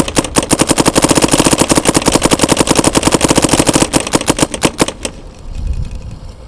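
Dye M3s electronic paintball marker on compressed air firing a fast, even string of shots as paint is run through it. The string stops about four seconds in, and a few last shots trail off near the five-second mark.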